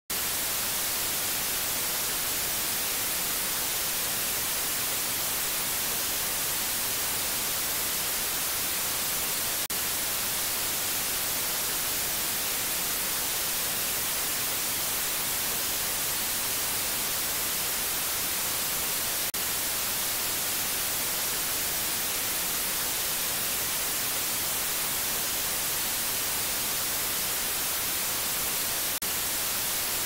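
Steady white noise: an even, unchanging hiss, brightest in the high frequencies, with a very brief dip about every ten seconds where the loop repeats.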